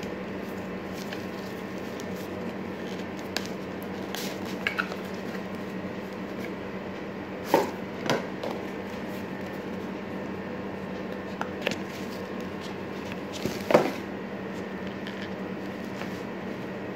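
Scattered taps, clicks and scrapes of a cardboard smartphone box and its lid being handled, the two loudest about seven and a half and nearly fourteen seconds in, over a steady room hum.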